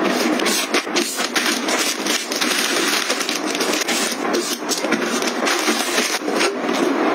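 Hands clearing a countertop: plastic snack packets crinkling and rustling as they are gathered up, with many small knocks and clicks of items being picked up and set down.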